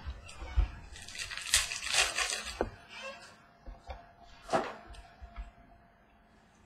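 Trading cards being handled on a table: a rustle of cards sliding and being flipped through, then a few short, sharp clicks as cards are set down.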